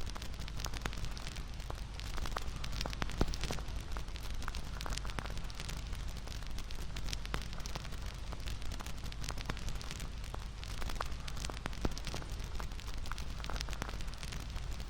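Bonfire crackling: a steady hiss with frequent, irregular small pops and snaps of burning wood.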